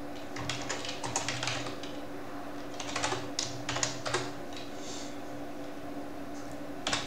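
Typing on a computer keyboard: quick runs of keystrokes with short pauses between them, and one louder keystroke near the end, over a faint steady hum.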